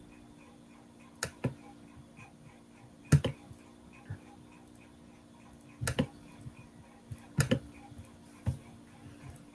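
Sharp computer clicks, a handful spread over several seconds, some in quick pairs, over a faint steady hum.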